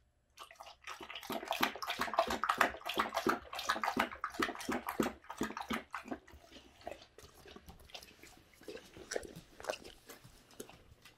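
Boxer dog licking out an empty stainless steel food bowl: a rapid run of wet tongue laps against the metal, loud for about the first six seconds and then fainter and more scattered.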